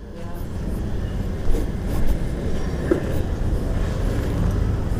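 Motor scooter engine running at low speed, a steady low rumble.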